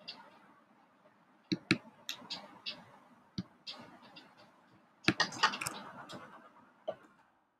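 Clicking at a computer: scattered sharp single clicks, then a quick flurry of clicks about five seconds in.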